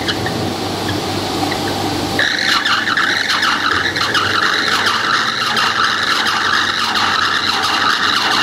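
Electric-motor-driven wood shaving crusher running, its belt drive humming with a high whine. About two seconds in, the sound turns harsher and denser, with rapid crackling as wood is ground into shavings.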